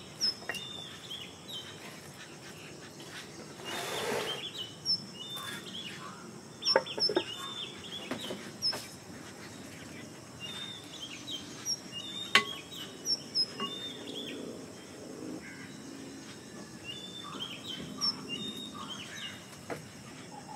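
Hens clucking and small birds chirping around a wood-fired outdoor kitchen. A metal spatula clinks sharply against a clay cooking pot a few times, and there is a brief hiss about four seconds in.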